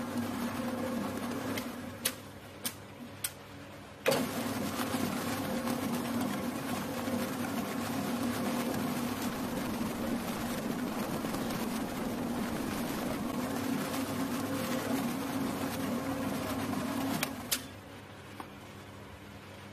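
Anvil commercial planetary mixer with a wire whisk running steadily, then stopping about two seconds in, followed by a few sharp clicks. It starts again with a loud jolt about four seconds in, runs steadily, and stops near the end with a click.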